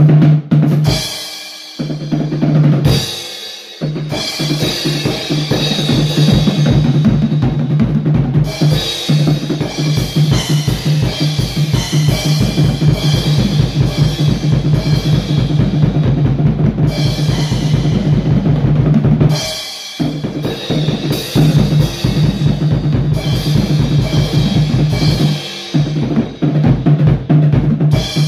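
Acoustic drum kit played solo: fast, dense beats on bass drum, snare and toms under a constant cymbal wash. The playing breaks off briefly in the first few seconds and again about two-thirds of the way through, with cymbals ringing out in each break.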